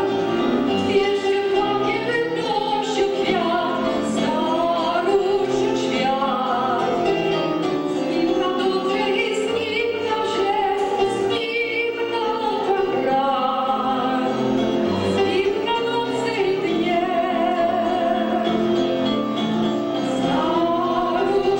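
A woman singing into a microphone with piano accompaniment, amplified through a PA system.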